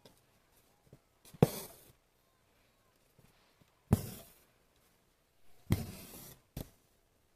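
Embroidery needle pierced through taut cotton fabric, a sharp pop each time followed by a short rasp of six-strand embroidery floss being drawn through: three stitches, with a shorter fourth near the end.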